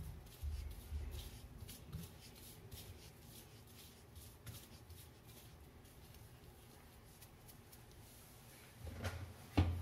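Faint scraping and rustling of dry spice powders (coriander powder, chilli powder and salt) being mixed together in a bowl, with soft low bumps about half a second in and near the end.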